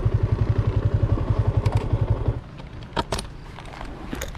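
Motorcycle engine idling with a steady low pulsing beat, switched off abruptly a little over two seconds in. A few short clicks and clatter follow.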